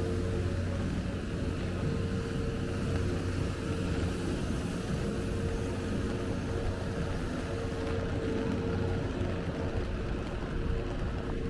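Steady hum of city street traffic: a constant engine drone with a steady low tone over an even noise.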